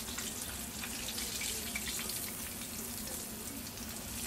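Chicken strips frying in a pot of hot oil, a steady sizzling hiss.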